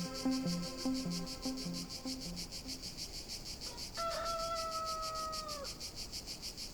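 Insects trilling steadily, a high pulsing at about five beats a second. Soft low music notes fade out over the first three seconds, and about four seconds in a single held tone sounds for under two seconds, dipping at the end.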